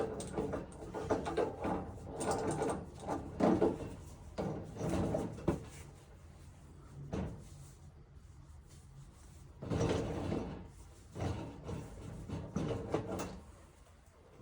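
Wrench working on a threaded gas pipe fitting: irregular clanks and scrapes of metal on metal as the fitting is tightened, in two busy spells with a quieter stretch between.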